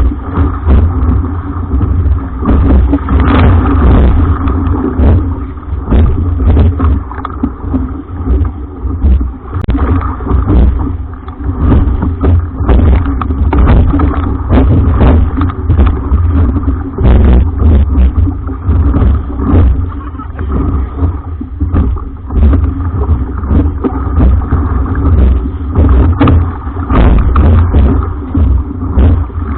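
Strong wind buffeting the microphone, loud and gusting unevenly, with the rumble of a jangada (sailing raft) running in the wind.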